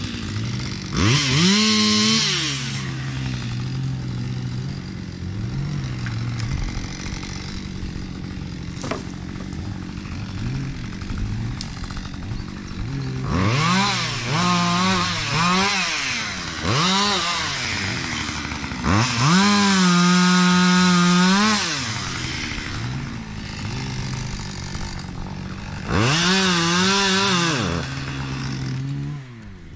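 Petrol chainsaw idling and being revved to full throttle in about six bursts as it cuts wood. Each burst lasts one to three seconds, the longest about twenty seconds in, and the saw drops back to idle between them.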